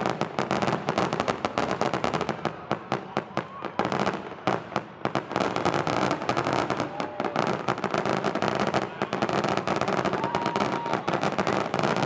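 Fireworks crackling: a dense, rapid run of firecracker-like pops, many a second, with no pause.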